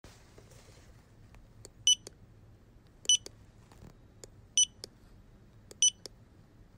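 Fingerprint scanner beeping: four short, high electronic beeps about a second and a quarter apart, with faint clicks between them over a low hum.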